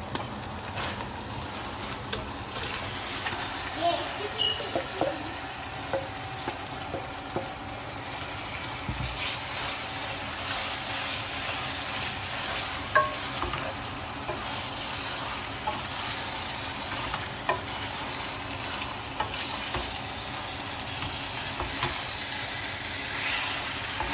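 Goat meat frying with sliced onions in butter and oil in a pot, a steady sizzle that grows louder about nine seconds in, with a spoon clicking and scraping against the pot as it is stirred.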